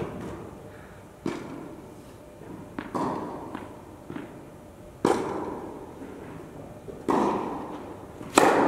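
Tennis ball impacts echoing around an indoor tennis hall: a string of sharp knocks from the ball bouncing on the court, then a racket striking a serve near the end, the loudest of them.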